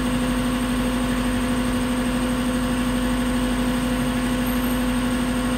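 A motor running steadily with a constant hum and a fast, even pulse.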